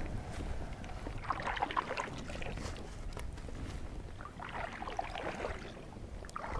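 Kayak paddle strokes: the blades dipping in and water splashing and dripping off them, twice, over a low steady rumble.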